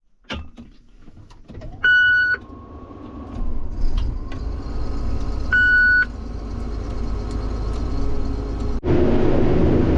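A vehicle engine running and getting louder, with two short electronic beeps about three and a half seconds apart. Near the end the sound cuts suddenly to a louder engine noise.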